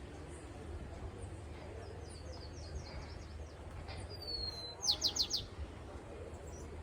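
A bird calling: a thin high whistle, then four quick sharp high notes, about four seconds in. A looser run of faint chirps comes earlier, over a steady low rumble.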